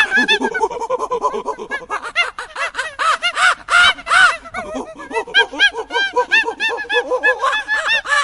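Macaques giving a rapid stream of short, harsh calls, several a second and overlapping without a break.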